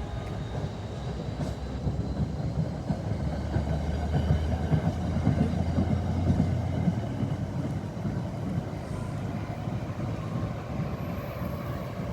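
A train passing: a steady low rumble that swells about four to seven seconds in and then eases off.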